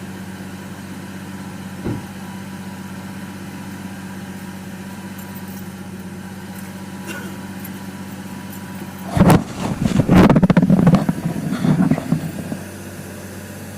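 An engine idling steadily. A loud burst of irregular clattering and rustling comes about nine seconds in and lasts a few seconds.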